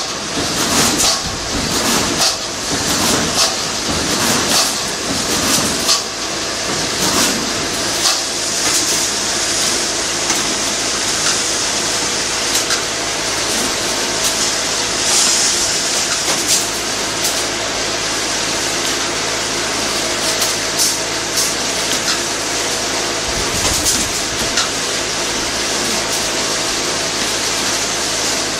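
Steel wire mesh welding machine running: a steady machine hum with repeated clicks and clacks, which come thick and fast for the first several seconds and more sparsely after that.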